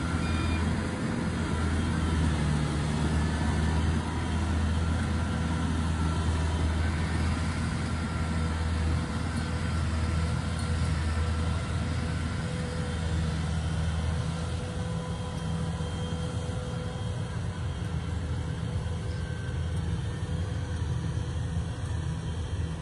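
Inari RG combine harvester running steadily, its engine drone carrying a few steady higher tones, a little quieter in the second half.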